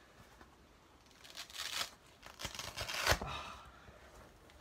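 Two bursts of ripping and rustling from Velcro straps and foam armor pieces being pulled and shifted on the body. The second burst ends in a dull knock about three seconds in.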